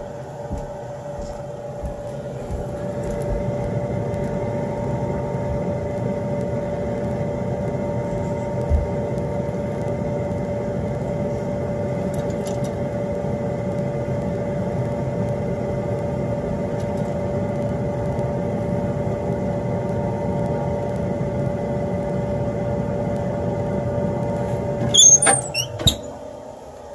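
Drolet ECO-45 pellet stove running its fans during a start-up test after an igniter replacement: a steady hum with a few fixed tones, growing louder about three seconds in. Near the end the stove door is shut and latched with a few sharp metallic clicks.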